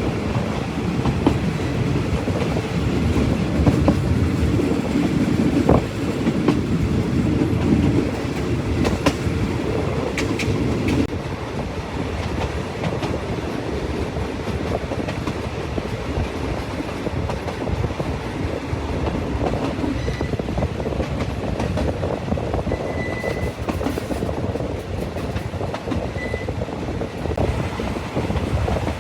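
Train running on the rails, its wheels clattering steadily over the track, somewhat louder in the first part. A few brief high squeaks come in the second half.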